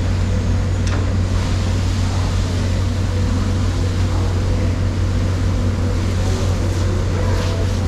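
A steady, loud low machine hum over a constant noisy background din, with a few faint brief clicks.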